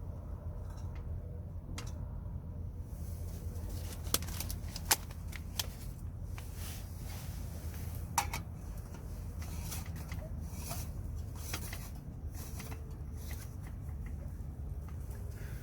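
Strong wind rumbling steadily on the microphone, with scattered sharp clicks and rustling of things being handled.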